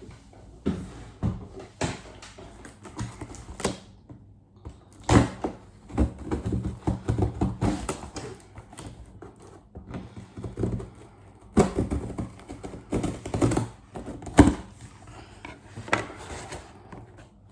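Cardboard shipping box being cut open with a knife and handled: an irregular run of scrapes, rustles and knocks, loudest around the middle and again near the end.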